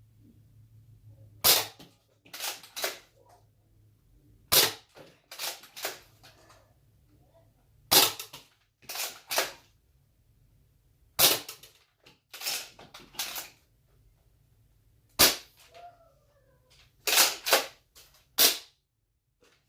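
Nerf blaster being fired again and again: sharp plastic snaps in groups of about three, one loud and two quieter, every three to four seconds.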